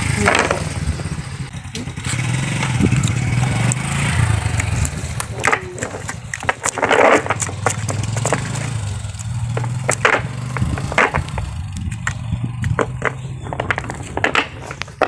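A small engine running steadily, with sharp knocks and clatter now and then.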